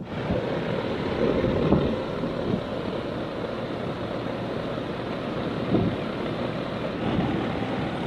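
Air-conditioner condensing unit running: a steady rush of fan and compressor noise, with a few light handling knocks.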